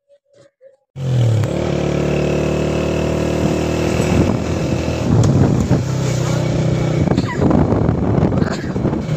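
Motorcycle engine running at a steady speed while riding along a road, starting abruptly about a second in.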